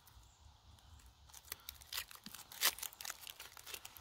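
Small foil packet being torn open and crinkled as a repellent mat is pulled out: faint, irregular crackles, the loudest a little over two and a half seconds in.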